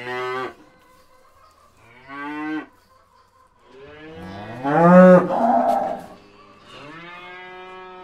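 Cows mooing, one call after another: a short moo at the start, another about two seconds in, a long, loud moo peaking around five seconds, and a steady, lower moo near the end.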